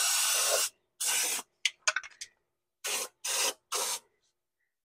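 Aerosol spray can spraying in short hissing bursts. One spray stops within the first second, another follows at about a second, and three quick sprays come in a row near the end, with a few light clicks in between.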